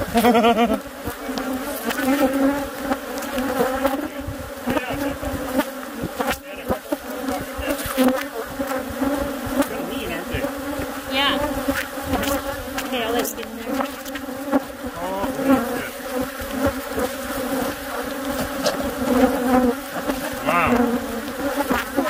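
A large, agitated colony of Africanized honey bees buzzing loudly around their exposed comb, a dense, wavering drone with the pitch sliding up and down now and then as bees fly close past. The bees are stirred up by having their nest torn open.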